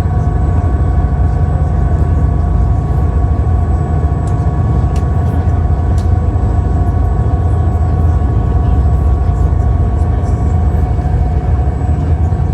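Steady low engine drone with several steady humming tones above it, unchanging throughout.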